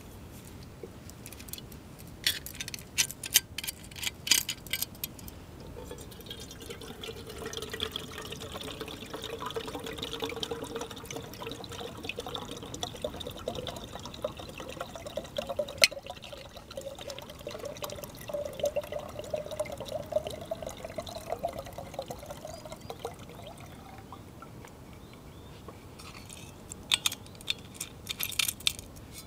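Water poured steadily into a small metal pot for about seventeen seconds, its pitch slowly rising as the pot fills. Sharp metal clicks and clinks of handled camp cookware come just before the pour and again near the end.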